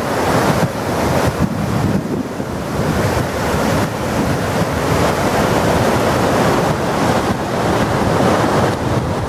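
Snowmelt mountain stream rushing and splashing over rocks in a steady, loud white-water cascade.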